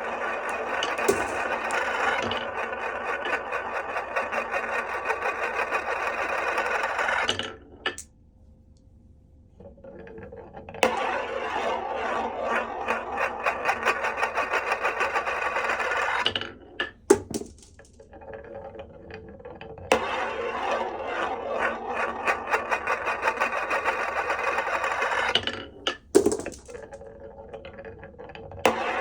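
Glass marbles rolling and rattling along a HABA wooden marble run, in runs of several seconds broken by three short lulls, with a few sharp clicks around the lulls.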